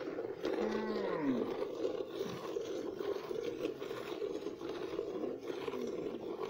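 Cow being milked by hand: milk squirts into a plastic bucket in a steady rhythm. A low cow call rises and falls in pitch about a second in, and a fainter one comes near the end.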